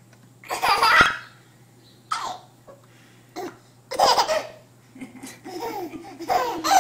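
A baby laughing in a string of short bursts, the loudest about a second in and more coming close together near the end.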